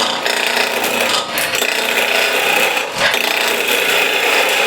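Skew chisel cutting a small wooden spindle spinning at about 1800 RPM on a wood lathe: a steady scraping hiss of the edge shaving wood, easing off briefly twice as the cut lifts.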